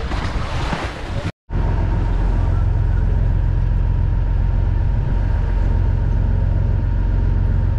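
Small passenger boat's inboard engine running steadily under way, heard from on board: a loud, even low drone with a faint steady whine. It starts about a second and a half in, after a brief hiss and a moment's dropout.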